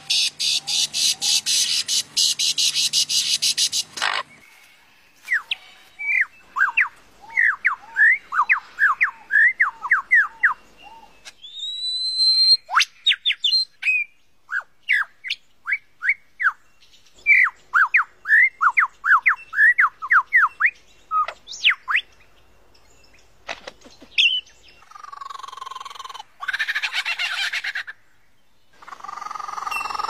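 Lyrebird singing a medley of mimicked calls: a harsh dense rattling that cuts off about four seconds in, then fast runs of sharp sweeping whistled notes, a single rising whistle, and a raspy harsh call near the end.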